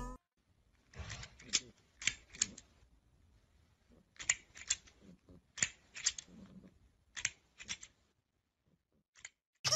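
Hard plastic clacking of a green toy crocodile's snapping jaws: five quick groups of two or three sharp clicks, spaced a second or more apart, and one last click near the end.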